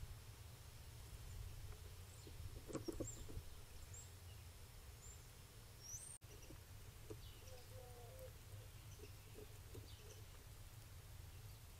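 Faint outdoor ambience over a steady low hum, with a few brief, faint high bird chirps and scattered soft clicks and scrapes close to the microphone, a cluster of them about three seconds in.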